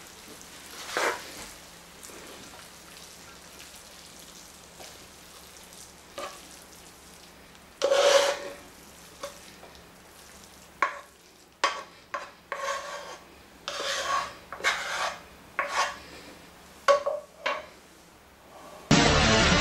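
A plastic spatula scraping and pushing stir-fried noodles out of a non-stick pan onto a ceramic plate. There is a longer scrape about eight seconds in, then a run of short scrapes and scuffs. Upbeat electronic outro music cuts in near the end.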